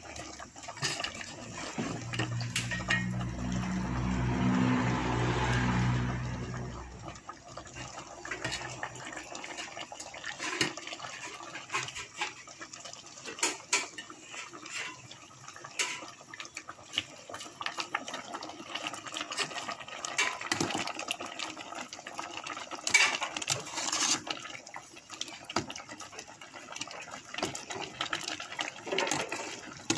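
A ladle stirring curry in an aluminium pot: scattered clinks and scrapes against the pot with liquid sloshing. A low droning hum swells and fades over the first several seconds.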